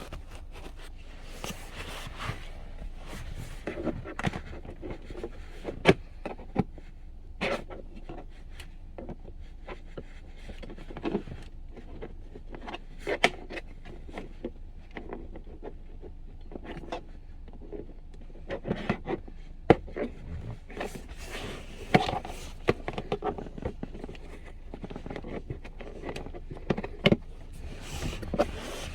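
Plastic pry tool scraping and clicking against a Tesla Model Y interior trim cover, in irregular clicks and scrapes, as the cover is worked at without yet coming free.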